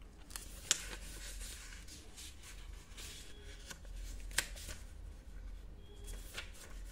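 Paper rustling as the reader's pages are handled, with two sharp ticks, one just under a second in and one about four and a half seconds in.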